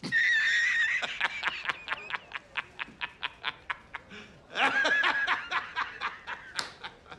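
High-pitched laughter: a rising cackle, then a long run of quick "ha" pulses, about five a second, that tails off, with a fresh burst of laughing about two thirds of the way through.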